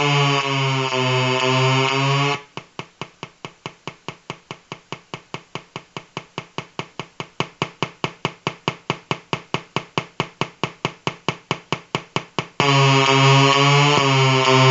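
Electrical interference noise from a battery-powered colour-changing LED lamp: a loud, pulsing buzz. About two seconds in it turns into rapid ticking, about five ticks a second, and the buzz comes back near the end, as the lamp's colour-change circuit switches.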